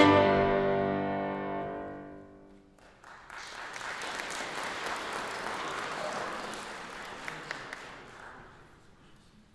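Closing chord of violin and piano ringing and dying away in the hall, followed about three seconds in by audience applause that fades out near the end.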